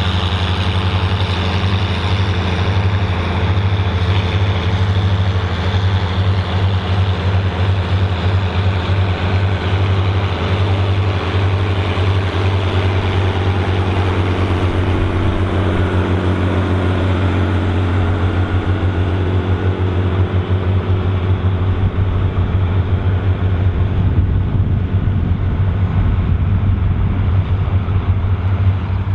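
Volvo BM 2654 tractor's diesel engine running steadily under load while pulling a plough, a deep even drone.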